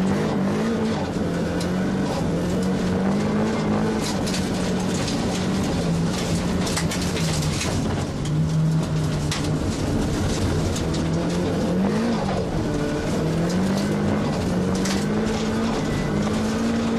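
Nissan S15 Silvia race car's engine heard from inside its stripped cabin under hard driving, the revs repeatedly climbing and then dropping as it accelerates, shifts and slows for corners. Scattered sharp clicks and rattles come between about four and ten seconds in.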